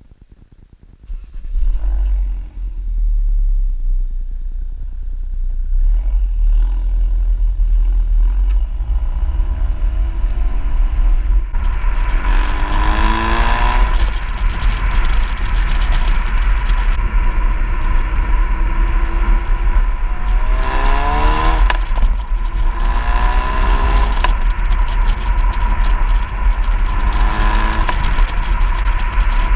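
2016 Ford Focus RS's turbocharged 2.3-litre four-cylinder pulling away and accelerating through the gears, its pitch rising again and again with each gear. It is heard from outside the body near the rear wheel, under heavy wind and road rumble.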